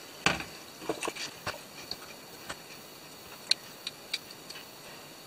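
Irregular light clicks and taps as small carbon-fibre drone frame parts and hardware are handled and set down.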